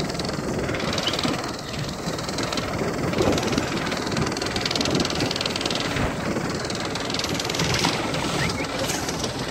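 Fishing boat's engine running steadily, with water rushing and splashing in the wake at the stern.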